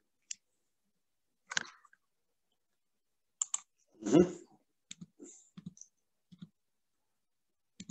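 Scattered sharp clicks at a computer, a few at a time, with one louder, duller bump just after four seconds in.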